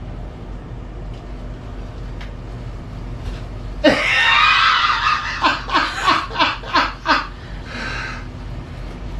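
A sudden shriek about four seconds in, then a burst of laughter in about six short pulses, with a fainter laugh just after.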